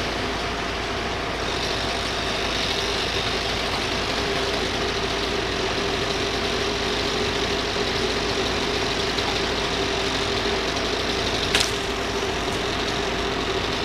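An engine running steadily at a constant speed with an even hum, and one sharp click about eleven and a half seconds in.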